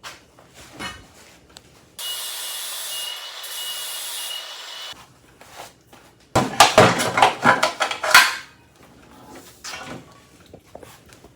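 Angle grinder fitted with a cutoff wheel running for about three seconds with a steady hiss and a high whine, then stopping abruptly. A second later comes a louder burst of clattering and knocking as metal pieces are handled.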